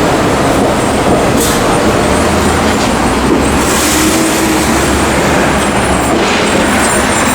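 Loud steady rumble of a passing train, with a faint squeal of wheels about halfway through.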